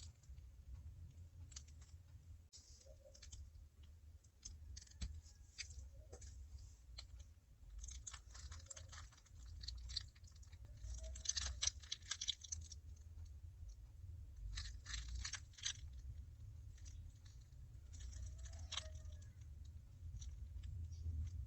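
Faint crackly scraping and light clicking from makeup being worked by hand, in short bunches every few seconds, the fullest just after the middle, over a low steady hum.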